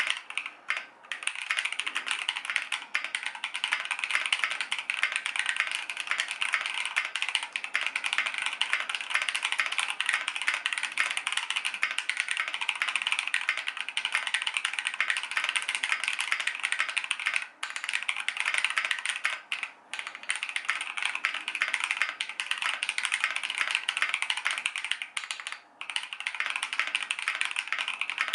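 Fast continuous typing on a custom mechanical keyboard with tactile Holy Panda switches lubed with Tribosys 3204, in a KBDfans 5 degree case: a dense stream of keystroke clacks, broken by three short pauses in the second half.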